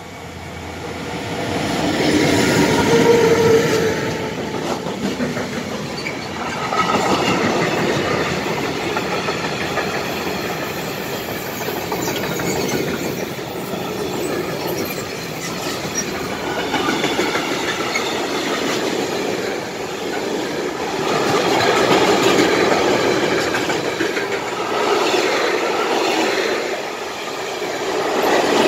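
Electric freight train passing close by: the locomotives come up and go past in the first few seconds, then a long line of freight wagons rolls by with a clickety-clack of wheels over rail joints and a steady high wheel squeal.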